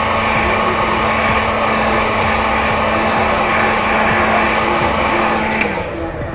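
Hot air blower running steadily with a fan rush and a low hum, heating the phone's front glass again to soften the adhesive under it; it switches off near the end.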